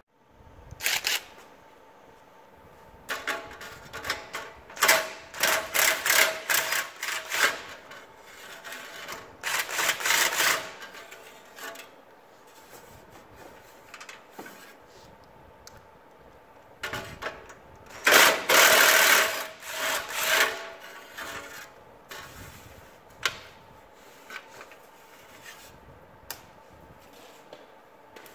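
Cordless electric impact wrench running in a series of short bursts as it loosens the bolts holding a snowmobile's exhaust, the longest and loudest run about two-thirds of the way through.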